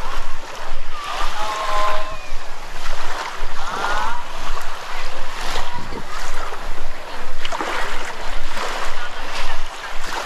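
Surf washing on a sandy beach, a steady rushing noise, with a couple of brief voices over it.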